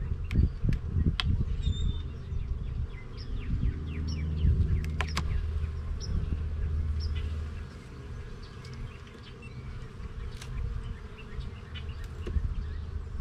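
Honeybees buzzing around an open hive: a steady low hum that softens after about eight seconds, with scattered sharp clicks and knocks.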